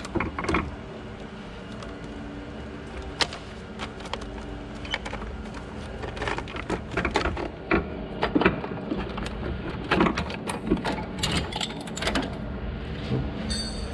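Hand work on metal parts under the hood: scattered clicks, clinks and knocks as the brake lines are eased aside and the old ABS actuator module is lifted out, busiest in the second half, over a steady low hum.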